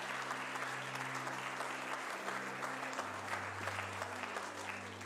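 Church congregation applauding, slowly easing off, over steady low sustained music notes that step down in pitch about three seconds in.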